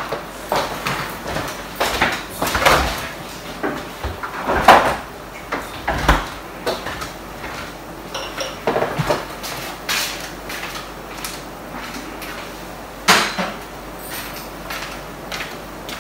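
Kitchen handling noise: a scattering of irregular knocks and clunks as things are picked up and set down, with louder knocks about five seconds and thirteen seconds in.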